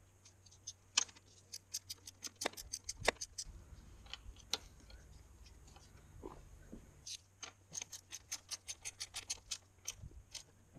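Hand socket ratchet clicking in two quick runs of about six clicks a second, one early and one in the second half, as a bolt is worked on the motorcycle's front-end brake fittings.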